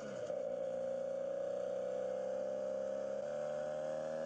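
Background music of long held tones with a slowly rising pitch, under a still photo.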